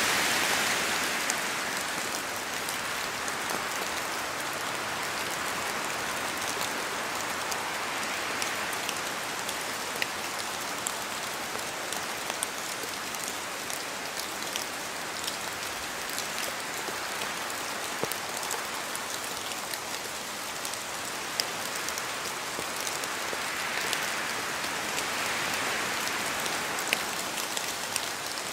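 Steady rain falling in a forest, with scattered close drops ticking and the wind in the trees swelling a few times.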